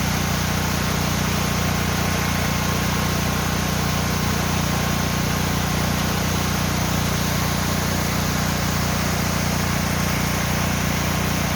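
Mountain waterfall pouring steadily into its pool: a constant, even rush of falling water with a deep low rumble under it.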